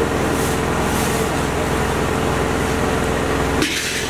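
Steady background hum of a running machine or motor, with a constant droning tone. About three and a half seconds in it briefly drops away and a short hiss takes its place.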